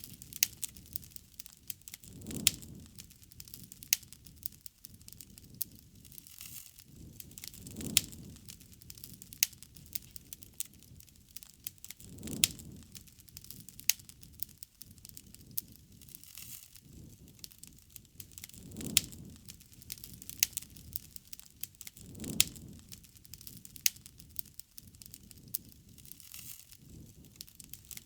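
Wood fire crackling, with frequent sharp pops and snaps and a soft low rush that swells every few seconds.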